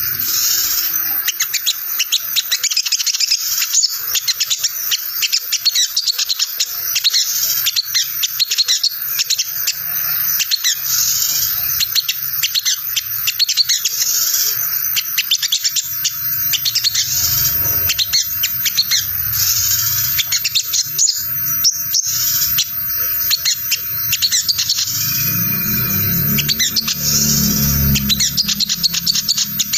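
Male olive-backed sunbird (sogon) giving its fast, unbroken 'ngriwik' twitter: a dense run of high chirps and trills, like a tangled tape. This is the chattering call bird keepers play to make other sogon answer.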